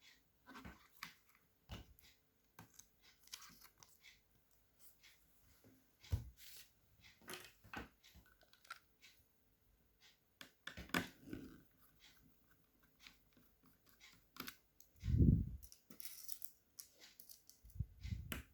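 Plastic parts of a Dell Vostro 3360 laptop being pried apart and handled: scattered irregular clicks and snaps, with a few duller knocks, the loudest about fifteen seconds in.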